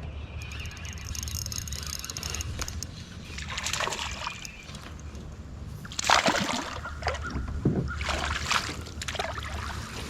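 Water splashing and sloshing at the side of a kayak in several irregular bursts, the loudest about six seconds in, over a low steady rumble.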